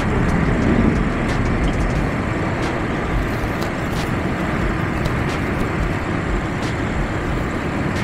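Motorcycle riding at speed on an open road: a steady rush of wind on the microphone, with the bike's engine running underneath.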